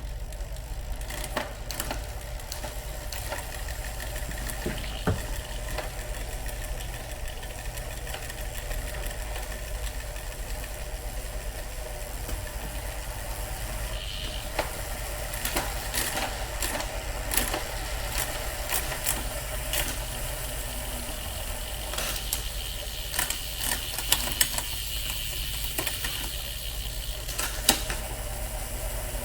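Irregular mechanical clicking and ticking over a steady low hum.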